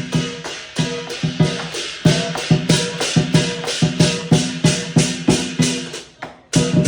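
Upbeat background music with a steady, quick percussive beat that drops out briefly near the end.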